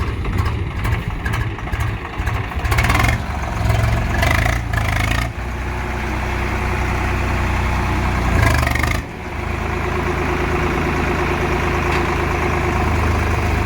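Tractor diesel engine running, with a few brief louder, noisier stretches before it settles into a steady run about nine seconds in.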